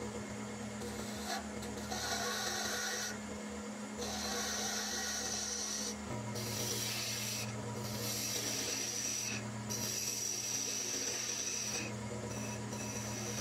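A turning tool cutting spinning green arbutus on a wood lathe, in repeated passes of one to two seconds with short breaks between, over the steady hum of the lathe.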